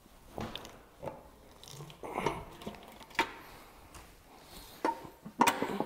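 Aluminium oil pan of an engine being pried off its block with a long tool: scattered clicks and scrapes of metal on metal about a second apart, with a couple of sharper knocks near the end that ring briefly.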